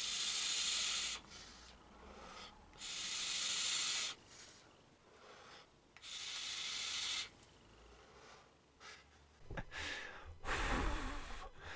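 Three breathy rushes of air, each about a second long, as a vaper draws through a sub-ohm tank (Aspire Atlantis V2 with a 0.15 ohm nickel coil on a Vaporshark DNA 200) and blows out thick vapour. Softer, lower breathing follows near the end.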